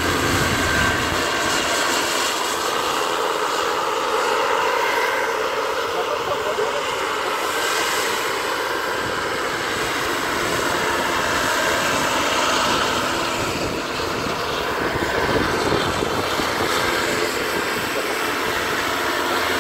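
Radio-controlled scale model helicopter in flight, its motor and rotor giving a steady whine with several held tones over a rushing noise.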